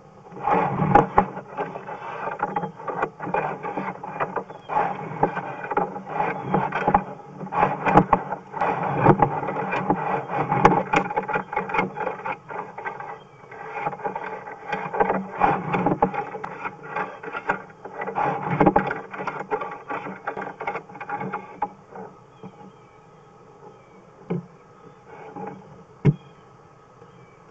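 Irregular rattling, clicking and scraping as a sewer inspection camera's push cable is fed down a scaled cast iron drain line. Near the end the pushing stops, leaving only a few single clicks.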